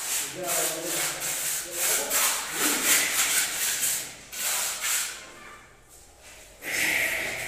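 Mason's trowel scraping and rubbing over wet cement mortar in quick repeated strokes. The strokes die down about five seconds in, and a louder scrape comes near the end.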